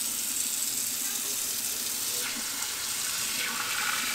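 Kitchen faucet running steadily into a sink, the stream splashing over hands and a paint sprayer part being rinsed under it; the splashing grows brighter from about halfway through.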